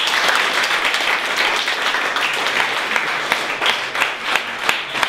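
Audience applauding. The clapping is dense at first and thins into scattered separate claps near the end.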